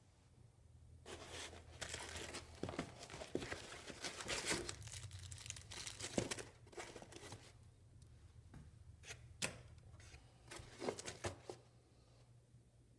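Packaging being handled as hands rummage in a cardboard box and pull out a bundled wiring harness: crinkling and rustling that starts about a second in and runs for several seconds, then quieter handling with a few sharp clicks and taps.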